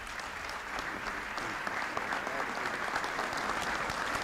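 Large audience applauding to welcome a speaker who has just been introduced. The clapping builds over the first second and then holds steady.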